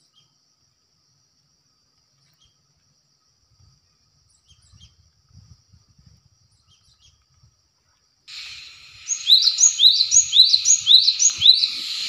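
Near silence, then about eight seconds in a cinereous tit starts singing: a quick run of about seven rising whistled notes, a little over two a second.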